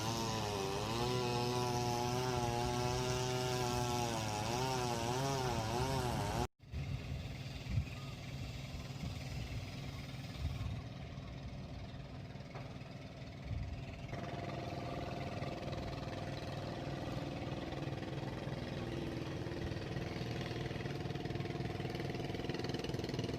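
A small engine running, its pitch wavering up and down for the first few seconds. After a sudden cut about six seconds in, a steadier, quieter engine hum continues.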